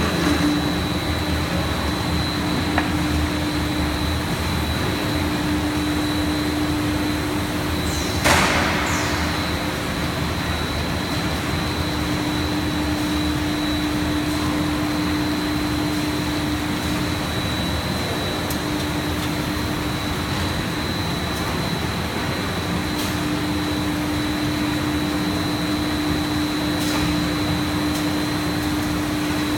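JWELL twin-screw PET sheet extrusion line running: a steady machine drone with a constant low hum and a thin high whine. A brief hiss sounds about eight seconds in.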